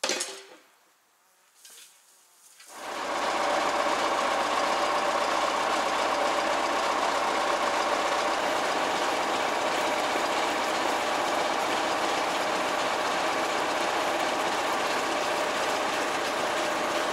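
DT-75 crawler tractor's diesel engine running steadily, coming in about three seconds in. A short knock sounds right at the start.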